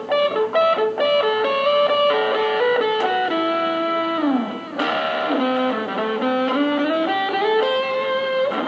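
Epiphone Les Paul Special II electric guitar played on the neck pickup through fuzz with a little delay. It plays a lead line: quick picked notes at first, then held notes, a slide down in pitch about four seconds in, and a fresh struck note followed by climbing notes.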